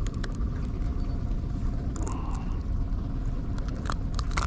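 A boat's engine running steadily as a low rumble, with a few light clicks near the start and again near the end.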